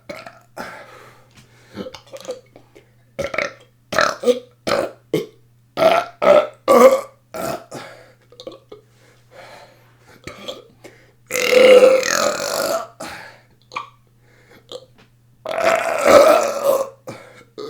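A person belching on purpose, over and over: a quick run of short burps in the first half, then two long, drawn-out burps near the end.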